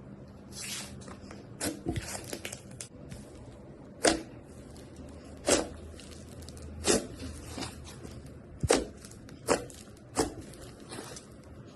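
Slime being pressed and worked by hand, giving a run of sharp, short pops about every second or so after a cluster of crackles in the first few seconds.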